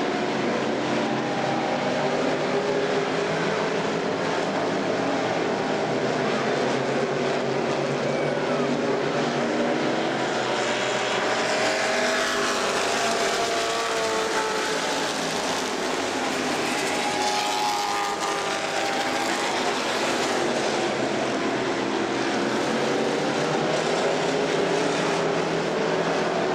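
Several dirt-track stock car engines running hard around the oval, a continuous overlapping drone. Their pitch rises and falls as cars pass, most plainly in the middle of the stretch.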